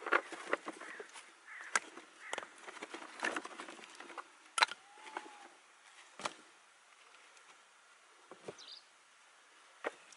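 Short sticks of dead wood knocking and clattering against each other as they are handled and stacked by hand, about a dozen sharp knocks in the first six seconds, then only a few.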